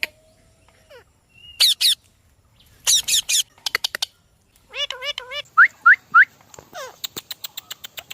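Ringneck parrot vocalising: sharp high squawks, quick runs of clicks, and short rising whistles mixed with chattering, voice-like notes.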